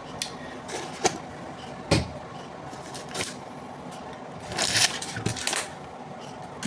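Kitchen handling noises: a string of separate knocks and clicks as things are picked up and set down on a counter, with a solid thud about two seconds in and a short burst of rustling clatter past the middle.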